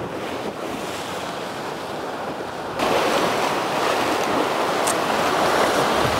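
Ocean surf breaking and washing against coastal rocks, a steady rushing that steps up louder about three seconds in.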